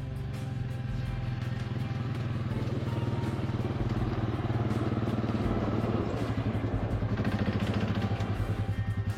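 A vehicle engine running steadily, with music playing over it; from about seven seconds in the sound takes on a fast, even pulsing.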